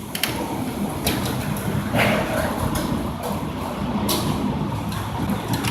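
Heavy vehicle engine running steadily, with a few short knocks or clicks.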